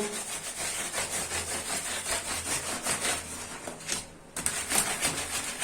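A paint brush scrubbing an air conditioner's indoor filter with detergent: rapid, repeated brushing strokes, with a short pause about four seconds in.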